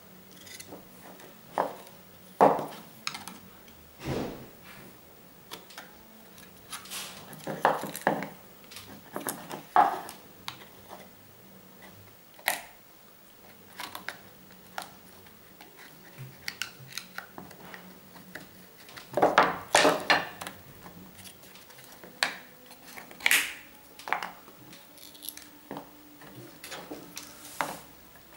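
Irregular clicks, clinks and knocks of small hand tools and metal parts being handled during work on an electrical connector, with a cluster of louder knocks about two-thirds of the way in.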